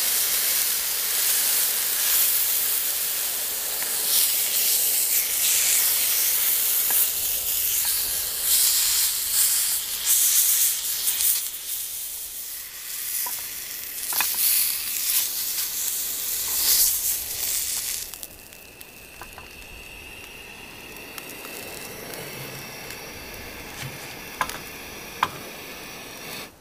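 Chicken breast sizzling in a hot frying pan on a portable gas stove, with a few clicks of metal tongs as it is turned and lifted out. About eighteen seconds in, the sizzling cuts off abruptly, leaving a quieter background with a faint steady high tone and a couple of light taps.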